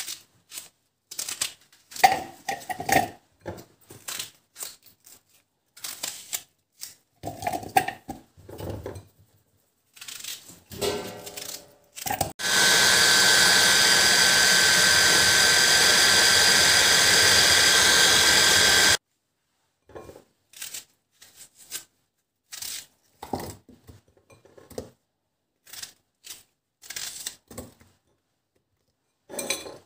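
Knife cutting through raw onion, with scattered taps and knocks of onion pieces dropped into a plastic chopper bowl. About twelve seconds in, a small electric food chopper runs steadily with a high whine for about six seconds, mincing onion fine, then stops suddenly.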